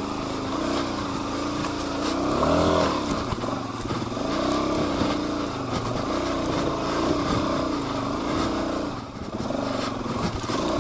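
Suzuki DR-Z400's single-cylinder four-stroke engine revved up and down in repeated swells as the throttle is worked to regain traction in mud.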